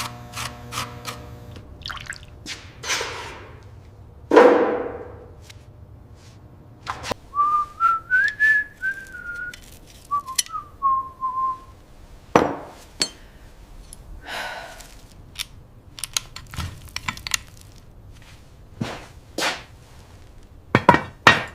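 A person whistling a short wavering tune for about five seconds, with scattered clinks and knocks of metal. Two whooshing sounds come in the first few seconds.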